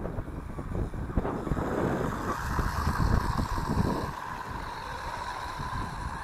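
MJX Hyper Go RC car running over grass: a steady whirr from its electric motor and drivetrain, with wind buffeting the microphone.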